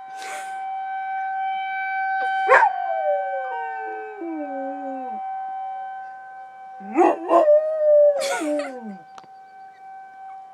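A dog howling along with a tornado siren, which holds one steady tone throughout. The dog gives two long howls: one about two and a half seconds in that slides down in pitch over a couple of seconds, and another about seven seconds in that rises and falls before dropping away.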